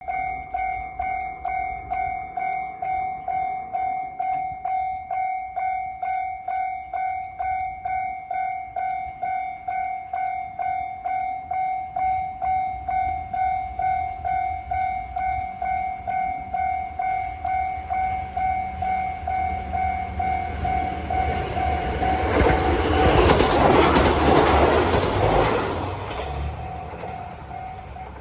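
Japanese railroad crossing alarm bell ringing steadily, about two dings a second. From about eighteen seconds in a train's rumble builds, and a diesel limited express rushes through the crossing for a few seconds, then fades while the bell keeps ringing.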